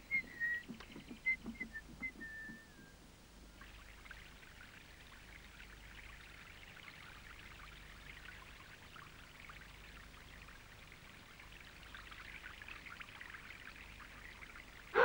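Water pouring and trickling steadily, swelling slightly near the end. It opens with a few short, high, falling whistled notes.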